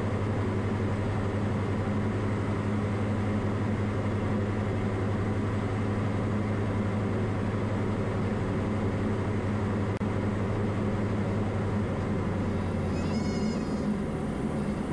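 Diamond DA40's engine and propeller running steadily at reduced power through the flare and touchdown on landing. Near the end a brief high, wavering squeal sounds over it.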